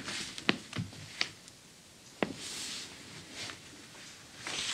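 Handling the paper pages of a 1940 Good Housekeeping magazine: a few light taps and clicks and soft paper rustling, with the page beginning to turn near the end.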